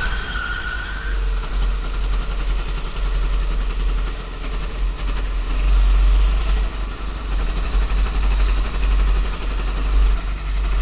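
Onboard sound of a go-kart being driven: the kart's engine running under way, heard mostly as a deep, steady vibration rumble through the kart-mounted camera, its level swelling and dipping a little through the corners.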